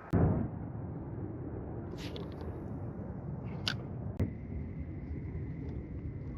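A sharp knock with a heavy thump right at the start, then steady low wind-and-water noise broken by two brief rustles and a single click. These are handling knocks on a fishing kayak.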